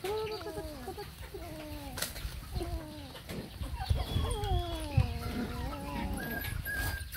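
Young puppies whining and whimpering in a series of falling cries, with a higher, steady whine near the end.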